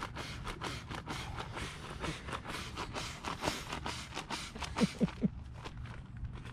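Rapid crackling, rustling and scraping from things being handled close by. About five seconds in, a man gives three short bursts of laughter.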